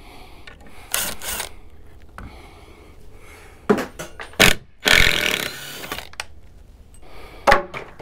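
Ryobi cordless drill driving screws into a wooden 2x4 in short bursts, about a second in and again around five seconds in, with a few sharp knocks between.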